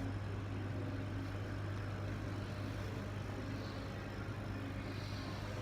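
Kamach 6090 laser cutting and engraving machine running: a steady low hum over a broad hiss, with a faint higher whine that comes and goes.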